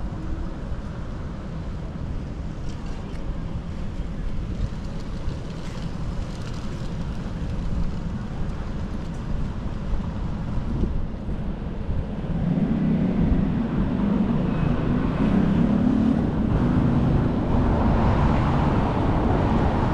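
City street traffic on a wide boulevard, a steady rumble of passing cars with wind buffeting the microphone. About twelve seconds in, a nearby vehicle engine grows louder and stays close.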